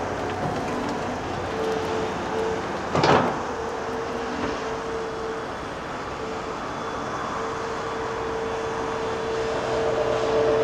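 Heavy construction machinery running, a steady engine noise with a held tone through it, and one sharp loud bang about three seconds in.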